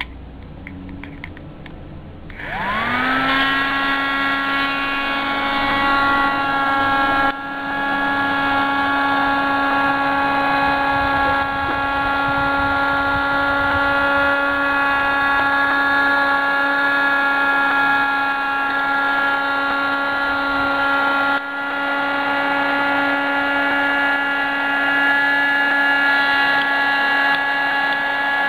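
Mini USB keyboard vacuum's small electric motor switching on about two seconds in, spinning up in pitch to a steady high whine, with two brief drops in level.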